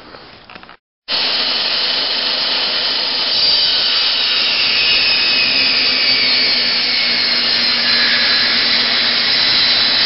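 Craftsman table saw running loud and steady as it cuts about an inch off a 2x4, starting abruptly about a second in. Its high whine slides slowly lower as the blade works through the wood.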